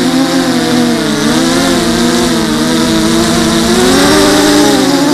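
FPV racing quadcopter's electric motors and propellers whining. The pitch keeps rising and falling with the throttle as it flies, and one propeller is missing about a centimetre of its tip.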